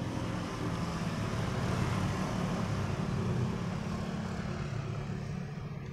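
A steady rushing, engine-like noise over a low hum, easing off near the end.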